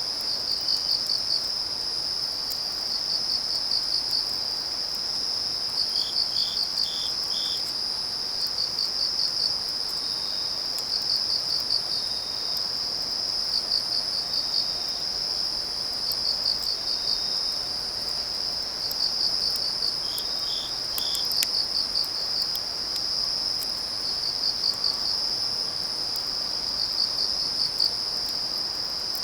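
Crickets chirping steadily at night, one high-pitched insect giving a pulsing trill every two to three seconds, a second, lower one chirping in short runs of four about six seconds in and again about twenty seconds in. Faint crackles of a wood fire.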